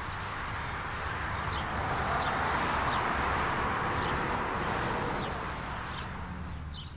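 Outdoor city ambience: a wash of traffic noise that swells and fades, over a steady low rumble, with a few faint bird chirps.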